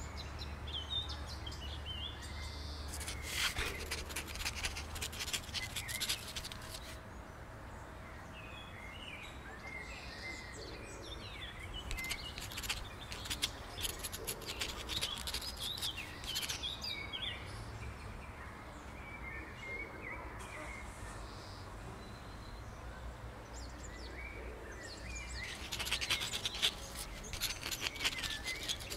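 Birds chirping over a faint outdoor background, with a few stretches of dense crackling.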